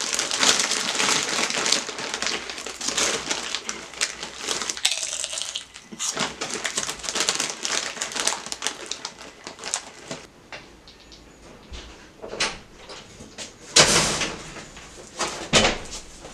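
Loud crunching and chewing of dry cereal, a dense run of crackly bites that thins out after about ten seconds. About fourteen seconds in comes a sudden loud thump, followed by a few more knocks.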